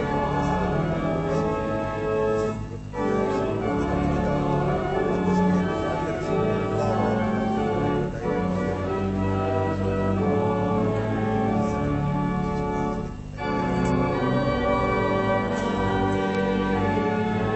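Church organ playing a slow hymn in held chords, pausing briefly between phrases about three seconds in and again about thirteen seconds in.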